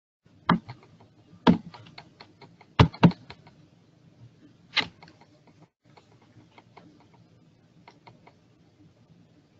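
Clicking and tapping on a computer keyboard and mouse, with a few sharp louder clicks in the first five seconds and a run of lighter ticks after them.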